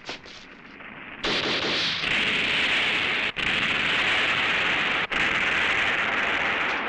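Explosion sound effects for pyrotechnic blasts: a few last rapid shots fade out, then about a second in a loud, steady rushing blast begins and runs on. It cuts off and restarts twice.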